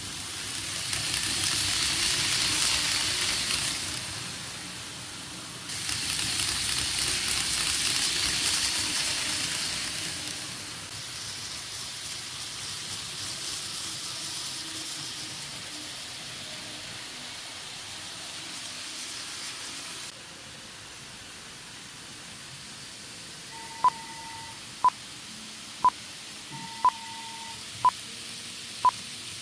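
N-gauge model trains running on the layout's track, a rushing hiss of wheels and small motors that swells twice as trains pass close, then settles to a lower steady run. Near the end a sharp click starts repeating about once a second, with short beeping tones between some of the clicks.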